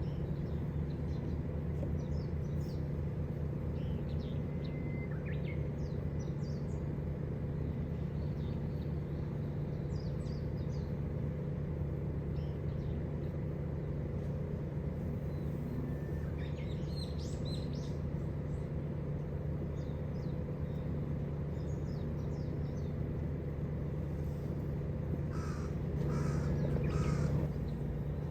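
Wild birds calling outside an open window: short calls scattered through, with a louder run of several calls near the end, over a steady low hum.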